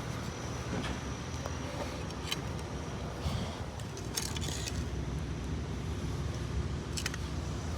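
A steady low rumble, like a motor running, with a few short sharp clicks or scrapes over it.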